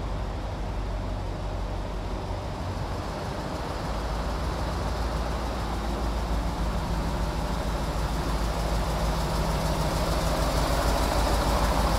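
Diesel engine of a MAN KAT 6x6 truck, a Deutz V8, running at low speed as the truck approaches, the deep rumble growing steadily louder as it draws near and passes close by.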